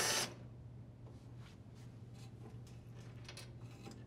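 Drill driver spinning out a ground screw from sheet-metal dryer base, stopping a fraction of a second in. After it, faint scattered clicks and taps as the loose screw and ground wire are handled.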